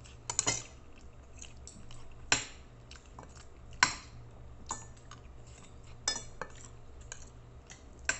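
Spoon and fork clinking and scraping against a plate while eating: separate sharp clinks every second or so, a quick cluster of them just after the start, the loudest about four seconds in.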